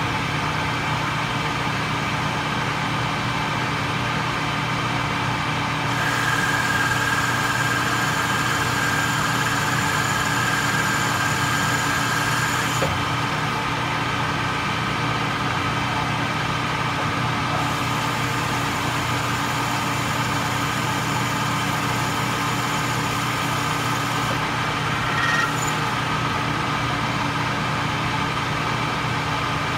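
Metal lathe running steadily while an insert turning tool takes a cut along a shaft, with a constant machine hum under the hiss of the cut. The hiss steps louder and softer a few times, and a thin high tone rings along with the cut from about six to thirteen seconds in.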